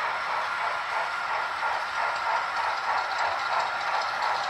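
HO scale model freight cars rolling along the track, making a steady, even hiss of small metal wheels on the rails.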